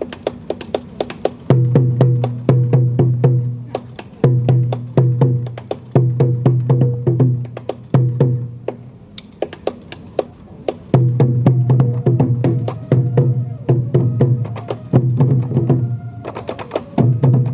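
Sansa odori festival music: taiko drums beaten in a driving rhythm, with many sharp wooden clicks between the deep strikes.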